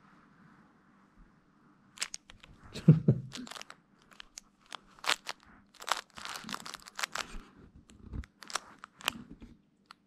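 Pomeranian chewing and mouthing a crinkle plush toy: irregular crinkling and crackling rustles, with a louder low bump about three seconds in.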